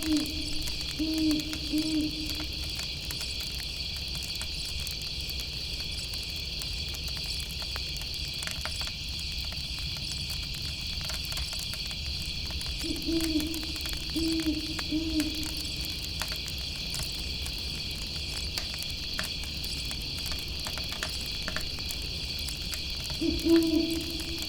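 An owl hooting in short phrases of three or four low notes, at the start, about halfway through and again near the end, over a steady chorus of chirping crickets and scattered crackles from a campfire.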